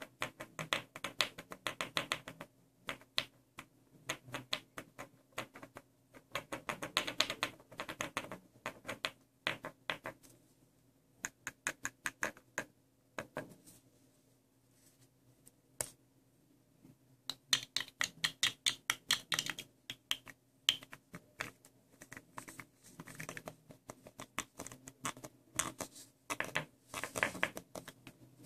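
Fingernails tapping rapidly on a round, liquid-filled glass perfume bottle. The taps come in quick flurries of light clicks broken by short pauses, with a longer lull about halfway through.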